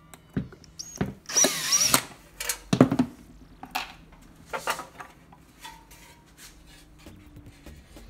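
Cordless DeWalt drill/driver backing a screw out of a safe door's sheet-metal back cover: the motor whines briefly, about a second in, then several knocks and clicks follow as the tool and cover are handled.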